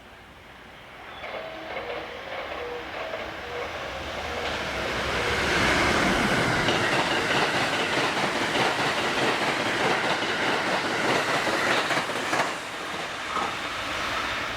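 Express train passing through a station at speed, with wheels running over the rails. It builds up from about a second in, is loudest for the middle six or seven seconds, then falls away near the end.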